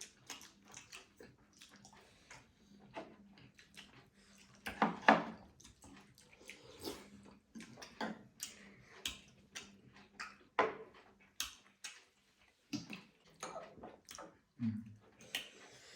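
Close-up eating sounds of momo dumplings dipped in runny chutney: wet chewing, lip smacks and slurps, a quick irregular series of short smacks with a few louder ones.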